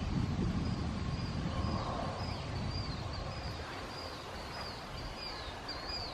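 A bird calling over and over, a short high arched note about twice a second, over low wind noise on the microphone.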